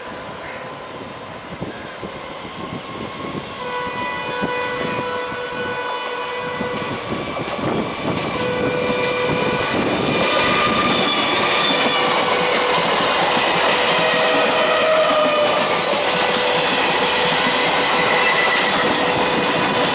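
Trains running on parallel tracks, their wheels clacking over the rail joints and growing steadily louder as they draw near. Long horn tones sound over the rumble.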